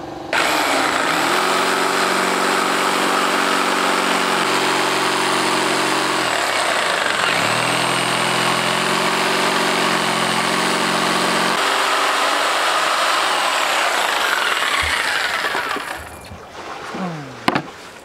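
Stanley jigsaw cutting a circle out of a plywood panel, its blade rasping steadily through the wood with the motor running; the motor note sags briefly partway through, then recovers. The saw stops a couple of seconds before the end, followed by a few light knocks.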